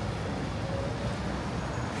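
Steady city street traffic noise, a low rumble of vehicles going by.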